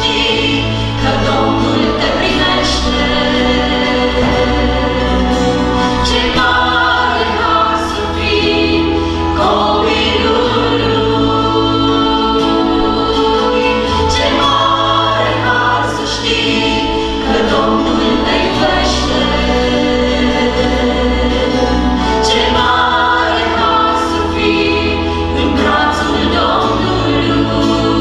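Small worship group singing a gospel song together in harmony, several women's voices leading, over electric bass, acoustic guitar and keyboard.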